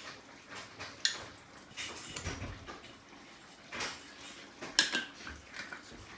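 Kitchen handling sounds: a few scattered light knocks and clinks of utensils and dishes, with a couple of louder knocks near the end.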